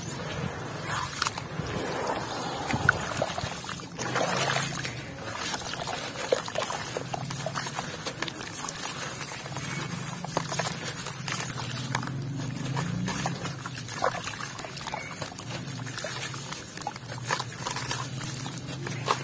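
Wet sand-and-cement chunks being squeezed and crumbled by hand in a plastic basin of water. Gritty crumbling and crackling comes with wet splashing and sloshing as the pieces drop back into the water.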